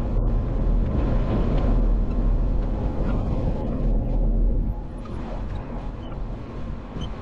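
Off-road vehicle driving over a trail: a dense, low rumble of engine and ground noise that drops in level about four and a half seconds in.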